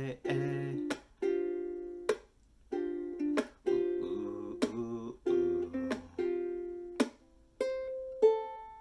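Ukulele strummed chords, each ringing out and fading, about one a second with short muted strokes between them, then a few single picked notes near the end.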